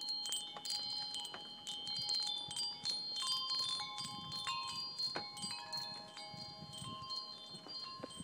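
Wind chimes ringing: irregular strikes at several different pitches, each tone ringing on and overlapping the next.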